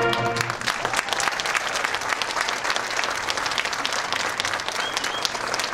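The massed marching bands' final held brass chord cuts off about half a second in, and the stadium crowd breaks into steady applause.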